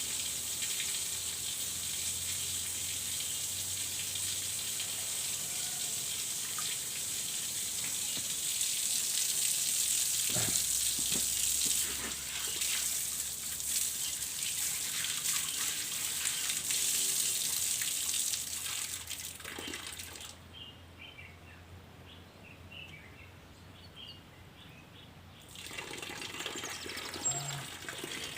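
Water spraying with a steady hiss from a pipe joint that has come apart under high mains pressure, the pipe being too short to stay connected. About 20 seconds in the spray drops away for some five seconds, then starts again.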